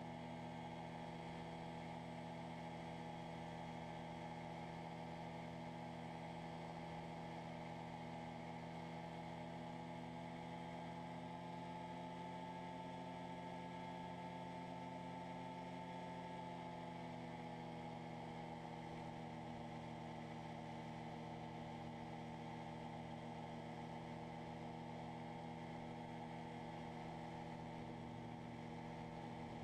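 Freshly overhauled Rotax 503 two-cylinder two-stroke engine running steadily, driving an ultralight in flight. Its pitch eases down slightly a little past halfway, then holds.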